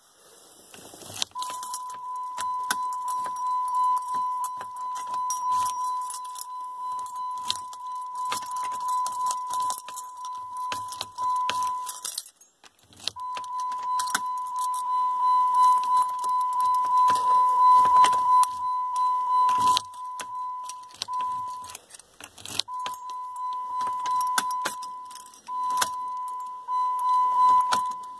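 Dodge Nitro's ignition warning chime sounding as a steady high tone, with keys jangling and clicking in the ignition. The tone cuts out for about a second near the middle and again briefly later, then resumes. It keeps sounding because the metal ignition cylinder does not pop out.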